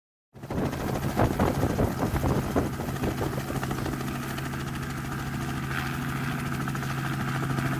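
Helicopter running in flight with a steady low hum. An irregular run of sharp cracks or knocks sounds over it in the first few seconds, then the hum carries on alone.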